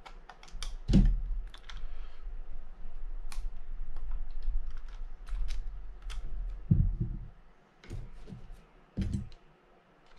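Small screwdrivers and picks clicking and scraping on the metal and plastic parts of a Shimano Baitrunner 12000D spinning reel's rotor during disassembly: irregular light clicks, with a few dull knocks from handling the reel, the loudest about a second in.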